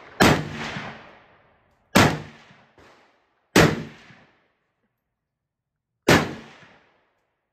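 Four single rifle shots from an AR-15, fired at an uneven pace about one and a half to two and a half seconds apart, each sharp crack trailing off over about a second.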